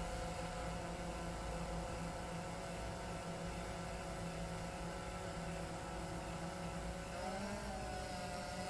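DJI Phantom 3 Standard quadcopter's propellers humming overhead at a steady pitch, rising briefly and settling back about seven and a half seconds in as the motors change speed.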